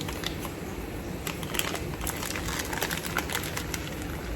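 Small toy packaging crinkling and rustling, with irregular clicks, as an advent calendar door is opened and the toy inside unwrapped.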